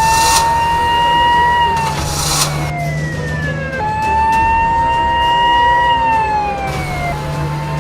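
Emergency-vehicle siren sounding in slow cycles: each tone rises slightly, glides down, then jumps back up, about every four seconds. A few short bursts of hiss come in between.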